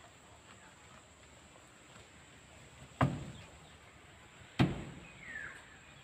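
Two sharp knocks on the wooden slats of a goat pen, about a second and a half apart, each dying away quickly, as goats move about on the wooden floor.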